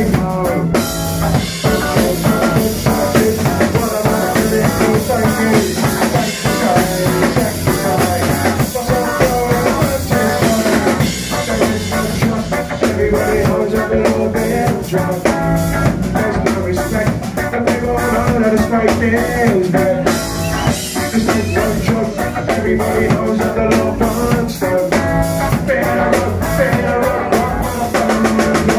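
Live band playing loud amplified music continuously: electric guitar, bass guitar and a drum kit with cymbals.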